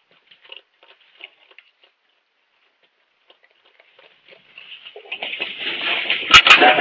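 Faint scattered clicks and crunches of raccoons eating from floor bowls, then from about five seconds in a steady rushing hiss of a water hose starts and quickly grows loud. Two sharp knocks come near the end as the raccoons bolt.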